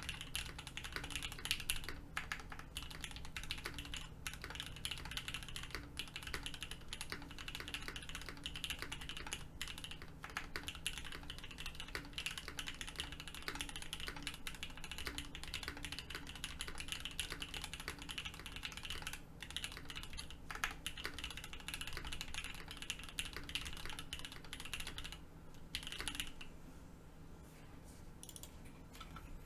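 Continuous typing on a Mode Envoy mechanical keyboard fitted with stock Gateron Oil King linear switches, built with no foam and hard lattice mounts. Keystrokes run densely, then thin out and grow quieter about four seconds before the end.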